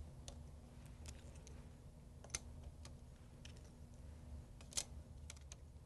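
Sparse, faint clicks of small blank metal ID tags being set one at a time into the slots of a sublimation jig, the loudest click coming near the end, over a low steady hum.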